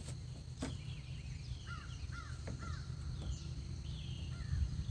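Birds calling: three short arched calls in a quick run about two seconds in and another near the end, with thin higher chirps between them, over a low steady rumble. Two sharp clicks come in the first second.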